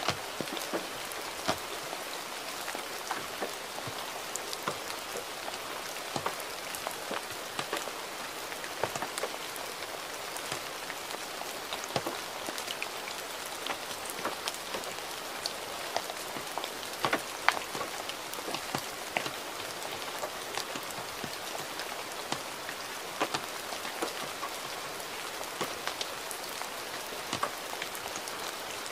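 Gentle rain falling steadily: an even hiss with frequent, irregular ticks of individual drops striking a surface.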